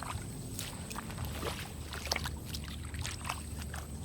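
Water splashing and sloshing in many short, irregular strokes over a low steady rumble.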